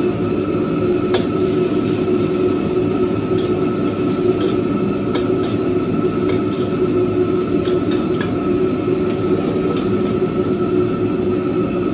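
A steady, loud mechanical drone with a constant hum runs throughout. A few light clicks and clinks are scattered through it.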